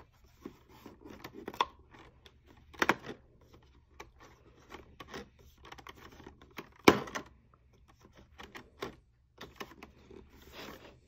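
Fingers scratching, rubbing and tearing at the cardboard of an advent calendar to push open one of its doors, in irregular bursts with a few sharper cracks, the loudest about 3 s and 7 s in.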